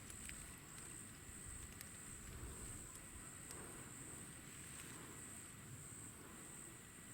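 Faint, steady high-pitched trilling of insects, pulsing slightly, over a quiet low rumble of open-air ambience.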